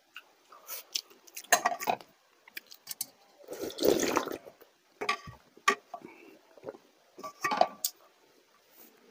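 Slurping and gulping the leftover rice water straight from a large stainless-steel bowl, a sustained swell about four seconds in. Around it come short clinks and knocks of steel and glass bowls being lifted and set down.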